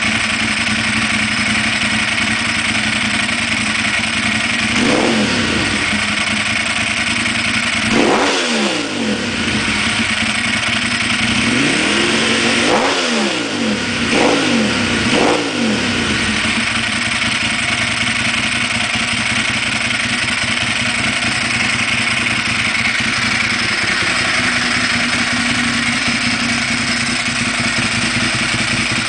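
Ducati Monster S4RS's Testastretta L-twin running through a Termignoni full exhaust system with the baffles removed. It idles with a handful of quick throttle blips between about five and sixteen seconds in, each rev rising and dropping straight back, then settles into a steady idle.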